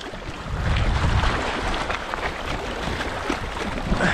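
Small waves splashing and lapping against shoreline rocks, with wind rumbling on the microphone.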